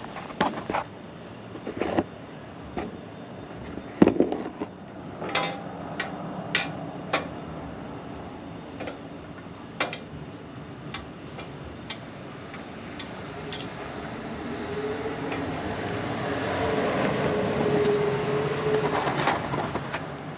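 Scattered small metal clicks and knocks of a screw, washer and chain guard being handled and fitted on a motorcycle chassis. In the second half a low rumble with a steady hum swells, loudest near the end, then drops away.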